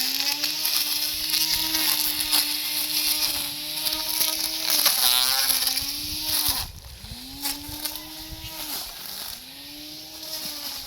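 Lawn mower engine running while cutting grass. Its pitch sags and recovers several times as it takes load, and it runs lighter and quieter in the last few seconds.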